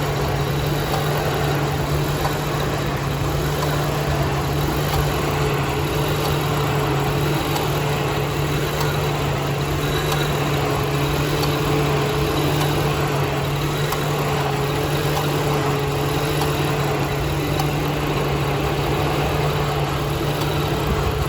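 1999 Lexus RX 300's 3.0-litre V6 idling steadily in park with the air conditioning on, running with a misfire in cylinder 6 that the owner puts down to a failing ignition coil.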